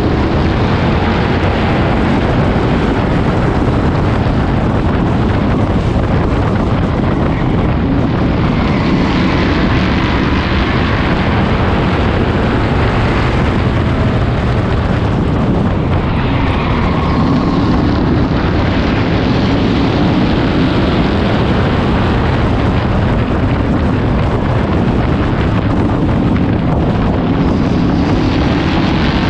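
Onboard sound of a Bomber-class stock car's engine running hard in traffic on a short oval, its pitch rising and falling every few seconds through the turns, with wind rushing over the microphone.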